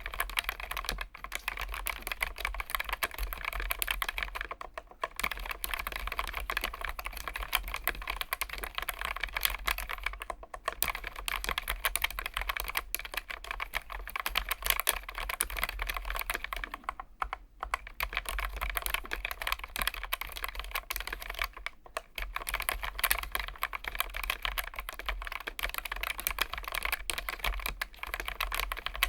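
Continuous fast typing on a Keychron K1 Max low-profile mechanical keyboard with Gateron low-profile switches: a dense run of key clicks, broken by short pauses a few times.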